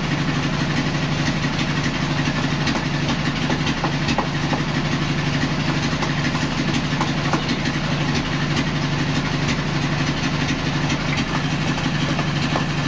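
Sawmill engine running steadily at idle, a constant low hum. Over it come scattered sharp metal taps of hammers striking a chisel as tacks are dug out of the timber.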